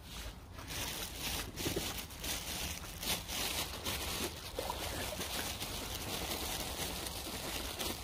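Wind rumbling on the microphone over a steady outdoor hiss, with a few brief crackles.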